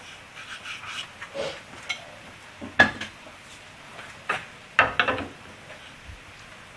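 Steel woodturning tools being handled and set against the lathe and workpiece, giving a few separate metallic clinks and knocks with a short ring; the loudest comes a little under three seconds in, and a quick cluster follows about five seconds in.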